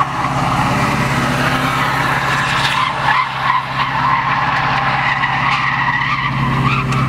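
Car doing a burnout: the spinning tyres squeal against the pavement over an engine held steady at high revs. The tyre noise dips briefly about three seconds in, and the engine gets louder near the end.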